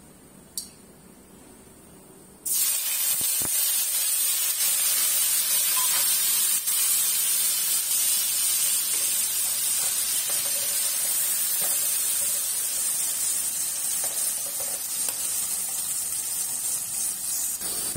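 Wet onion paste hitting hot oil in a kadai: a sudden loud sizzle starts about two and a half seconds in and then keeps on steadily as the paste fries.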